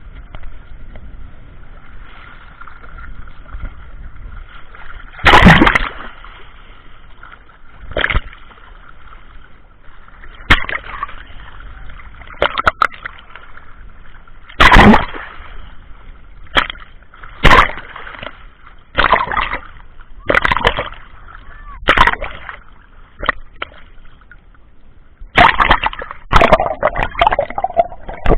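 Sea water splashing and sloshing around a camera in a waterproof case, muffled, with about a dozen loud irregular splashes as waves and movement hit the housing.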